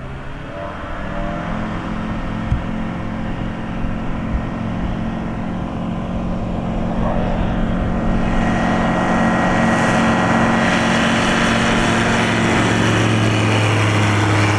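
Rotax 912 Xtra four-cylinder boxer engine and propeller of a KFA Bushbaby bushplane at takeoff power, a steady drone growing louder as the plane rolls down the runway toward the listener and lifts off near the end.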